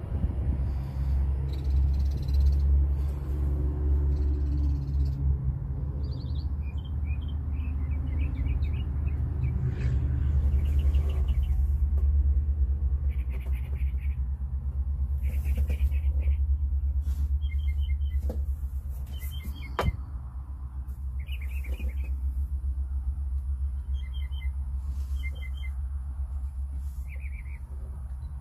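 Honda Acty kei truck engine idling steadily, a low even hum, with birds chirping in short repeated calls over it. A single sharp click sounds about two-thirds of the way through.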